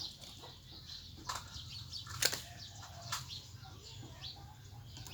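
Three sharp flaps or knocks about a second apart, over faint, scattered chirping of small birds and a steady low hum.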